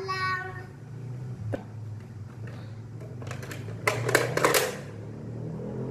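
Hard plastic toy pirate ship parts clicking and rattling as they are handled: one click about a second and a half in, then a louder cluster of clacks around the middle, over a steady low hum.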